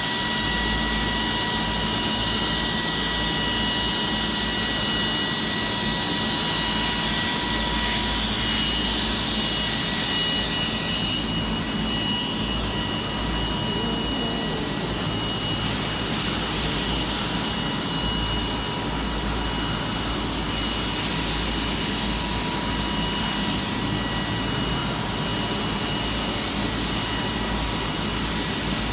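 Gantry CNC milling machine cutting an aluminum frame: a steady high whine of several tones from the running spindle over a constant rushing noise of cutting and coolant.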